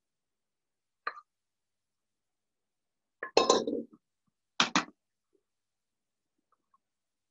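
Kitchen clatter: a stainless-steel mixing bowl set down on a stone countertop with a clank about three seconds in, followed by two quick knocks, with a faint tap about a second in.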